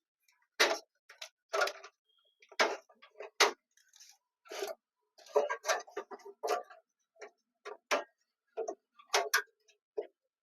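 Motherboard I/O shield, a thin metal plate, being pressed and snapped into the PC case's rear opening: a run of sharp, irregular clicks and taps, about a dozen of them.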